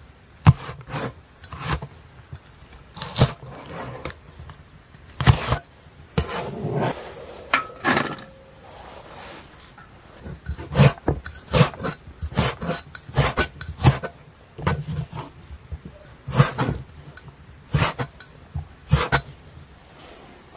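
Irregular knocks and clicks with stretches of rubbing and scraping, as when objects are handled and set down.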